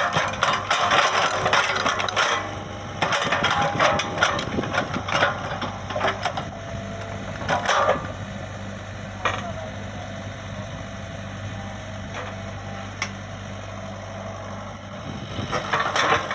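Komatsu PC75UU excavator's diesel engine running steadily, with clattering, knocking and scraping from the machine working, busiest over the first half and again near the end, quieter in between.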